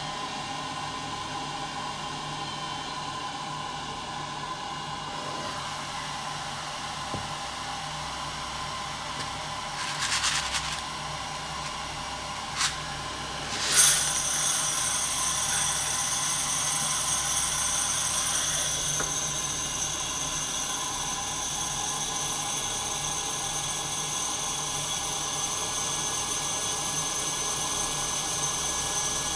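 Santoker Q5 coffee roaster running with a steady hum. A short rattle comes about ten seconds in. About halfway through, green coffee beans are charged into the preheated drum with a brief loud rush, after which the roaster runs a little louder with a high whine added.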